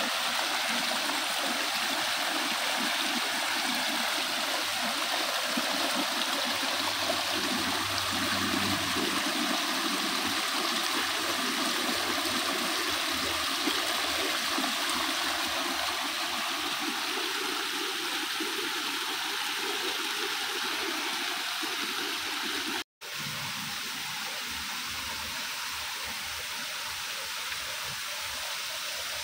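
Water running steadily over mossy rocks in a small garden rock waterfall. It cuts out for an instant near the end and comes back a little quieter.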